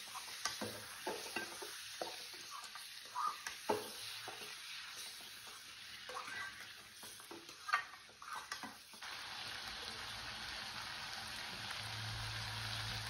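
Chicken pieces frying in oil in a stainless steel kadai, stirred with a steel spatula that scrapes and taps against the pan in many short strokes. About nine seconds in the stirring stops and only a steady sizzle is left.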